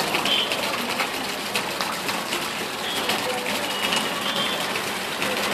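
Steady rushing noise of floodwater moving through a street, with a few short high-pitched tones and faint voices in the background.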